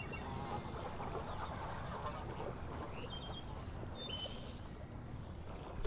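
Marsh ambience: insects chirping in a steady pulsing rhythm, with a few short bird calls about three to four seconds in. A single sharp click near the end is the loudest sound.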